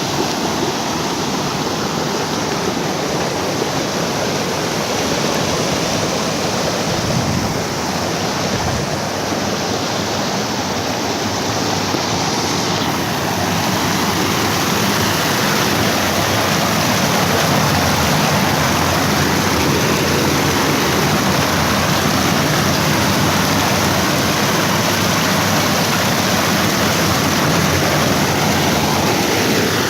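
Steady rush of flowing water, loud and unbroken throughout.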